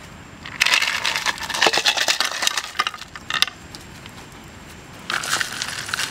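Ice cubes tipped into a hot frying pan, clattering against the metal and crackling on the heat. It comes in two bouts, one starting about half a second in and lasting nearly three seconds, the other starting about five seconds in.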